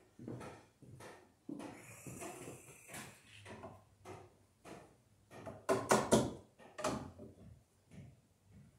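Footsteps and handling knocks against the wooden wall framing, a string of short taps, loudest as a quick run of several knocks about six seconds in.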